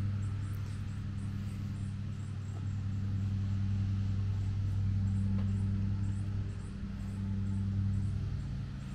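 A motor running steadily, giving a constant low hum. Faint high ticks repeat a few times a second over it.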